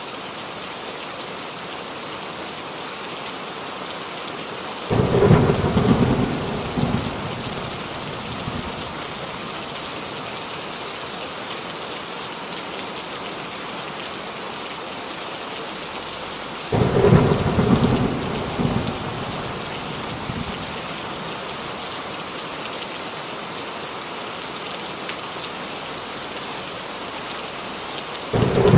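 Steady rain falling on a roof, with thunder breaking in twice, about twelve seconds apart: each clap comes in suddenly and rumbles away over a few seconds. A third clap starts right at the end.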